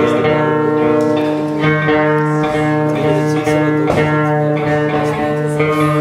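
Music: a plucked string instrument playing over steady held notes that drone on throughout.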